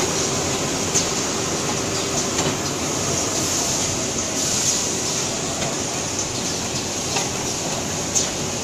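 Single-roll toilet paper packing machine running: a steady mechanical noise with occasional short sharp clicks.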